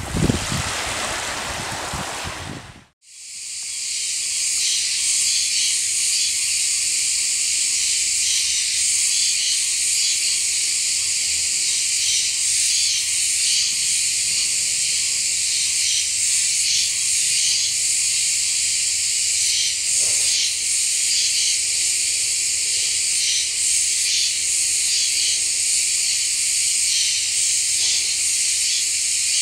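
Small waves washing up a sandy beach, cut off abruptly about three seconds in. A dense, steady, high-pitched insect chorus follows.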